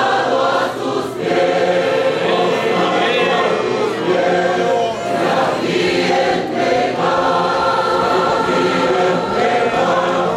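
Church choir singing a Spanish-language hymn, many voices together without a break.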